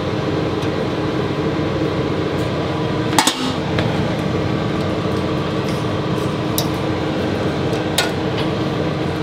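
Sharp metallic clicks and clinks, about three seconds in and twice more near the end, as a mower throttle cable and its clamp are worked loose by hand. Under them runs a steady mechanical hum.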